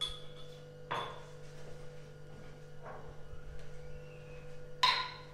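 Spoon clinking against kitchenware while spices are measured out: four short ringing clinks, the last the loudest.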